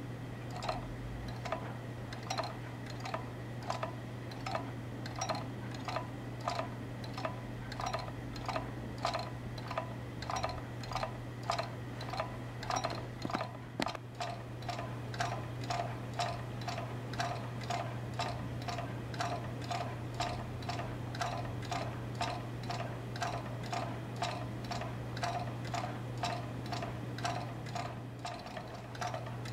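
Model magnet-motor wheel spinning, its rim magnets and the pivoting magnet arm making a regular ticking, about two clicks a second, over a steady low hum.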